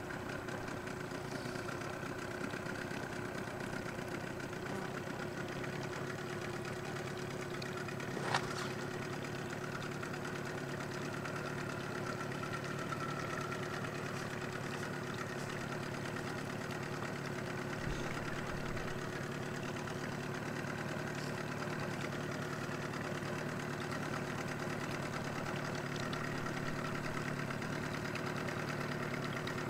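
Small outboard motor running steadily at low speed, pushing a small boat along. One sharp click about eight seconds in.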